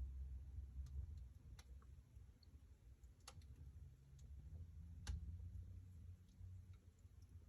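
Wood fire burning in a fireplace: faint, sparse crackles and pops, three sharper ones spaced a second or two apart, over the low rumble of the flames.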